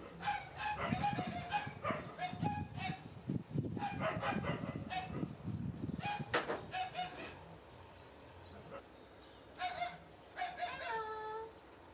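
Repeated short, high-pitched animal calls coming in quick clusters, with a couple of longer calls that fall in pitch near the end.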